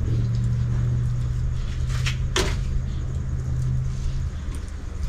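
A steady low mechanical hum, like a motor running, that stops about four seconds in. A couple of light clicks of a knife against a plastic cutting board come about two seconds in.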